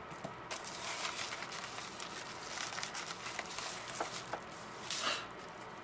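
Packaging crinkling and rustling in hand as a handmade soap bar is unwrapped, with a louder crinkle near the end.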